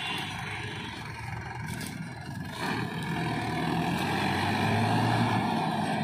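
Swaraj 843 XM tractor's three-cylinder diesel engine running as it hauls a trailer loaded with mud, getting louder from about halfway through as the tractor comes closer.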